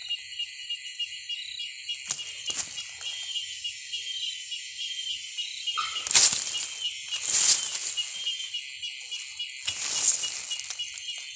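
Nine-banded armadillo scrabbling into its burrow, rustling dry leaves and loose soil in a few short bursts. The loudest come about six and seven and a half seconds in, with another near ten seconds.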